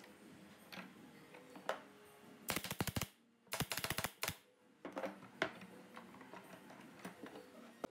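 Pneumatic nailer driving nails into the corner of a wooden cabinet door frame: two short bursts of rapid clicks about a second apart. A few single knocks follow as the tool and the frame are handled.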